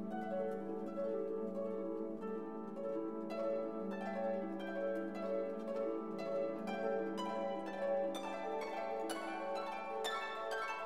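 Background music of plucked strings over a held low note, the plucking growing busier and brighter from a few seconds in.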